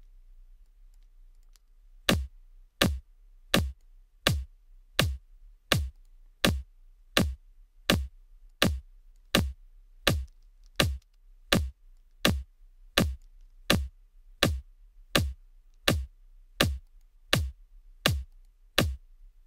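Electronic kick-drum sample looping, starting about two seconds in: about two dozen hits spaced evenly, a little under one a second, each a sharp click with a short low thump. The sub band of the kick has been shifted forward in time, which the engineer says costs the kick some of its tack.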